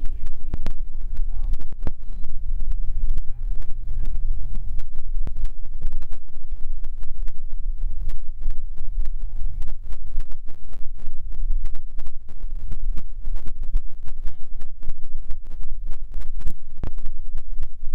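Drag-race cars' engines idling at the starting line: a steady low rumble, with frequent sharp crackles over it.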